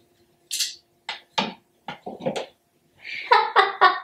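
A woman laughing: short breathy bursts at first, then a run of voiced "ha-ha" pulses near the end.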